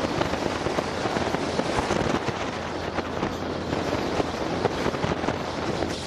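Wind buffeting the camera microphone on an open Polaris Slingshot at speed: a dense, irregular crackle over a steady rush of wind and road noise.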